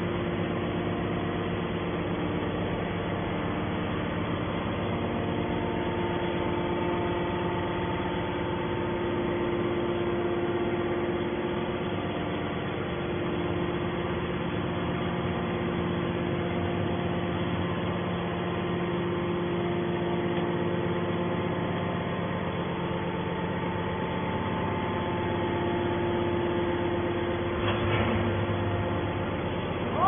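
Hydraulic metal scrap baler running: a steady hum from its hydraulic pump unit with several held tones, and one short clunk near the end.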